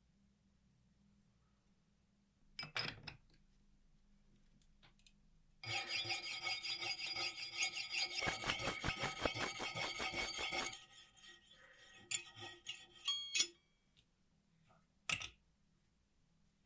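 Metal parts clicking and ringing: a few separate clicks, then about five seconds of rapid, rhythmic metallic clicking with a ringing tone, then scattered clicks and a short ringing chime.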